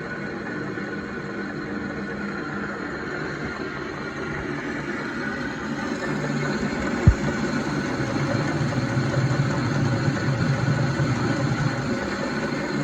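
Numobams NU 210V 600 mini metal lathe running with a steady motor and gear whine. About halfway through it gets a little louder, with a single sharp click.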